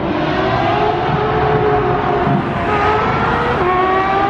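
Porsche 991.2 GT3 RS's 4.0-litre flat-six, fitted with headers and a straight-pipe, muffler-delete exhaust, accelerating under load. The engine note climbs steadily, dips with an upshift about three and a half seconds in, then climbs again.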